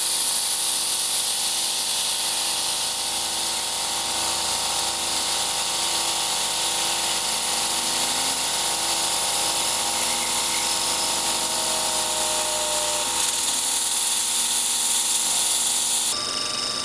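CNC milling machine spindle running a 1/8-inch carbide end mill through a brass gear on a profiling pass, a steady high whine over the hiss of the coolant mist spray. The cutting sound stops abruptly near the end, leaving a quieter steady hum.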